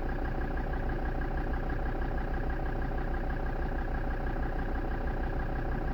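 Land Rover Defender Td5's five-cylinder turbodiesel engine idling roughly with a steady, even low throb.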